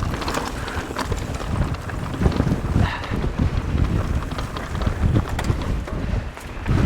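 Strong wind buffeting the microphone in a low, uneven rumble, with the irregular clatter and knocks of a mountain bike rolling over rough, rocky trail.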